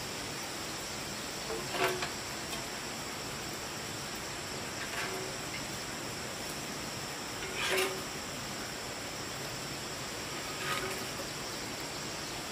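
Steady, high-pitched chorus of insects chirring. A short, louder sound breaks in about every three seconds.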